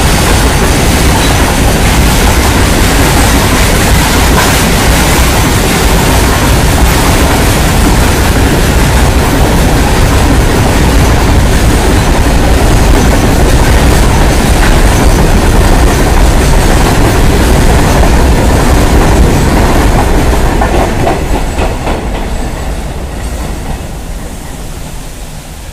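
BCN/A covered freight wagons rolling past at speed, a loud, continuous rumble of steel wheels on the rails. It dies away over the last few seconds as the end of the train draws off.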